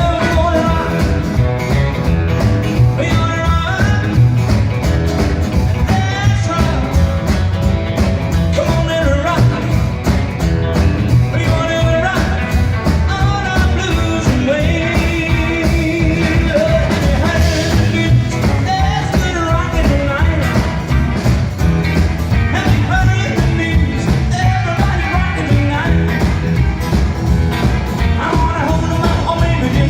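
Live rockabilly band playing an uptempo song with a steady driving beat, guitar and other instruments carrying the melody.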